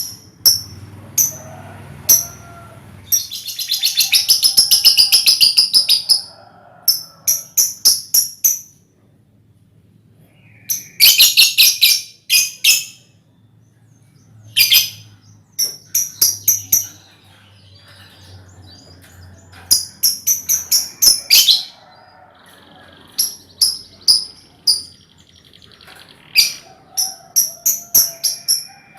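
A colony of young lovebirds chirping: sharp, high chirps in quick runs of several, with two stretches of dense chattering, about four seconds in and again about twelve seconds in.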